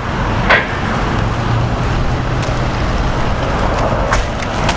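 Steady rumble and hiss of vehicle noise, with a short click about half a second in.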